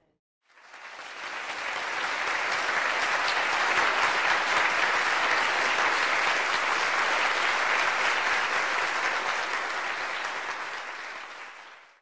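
Audience applauding, swelling up over the first second or two, holding steady, and fading out near the end.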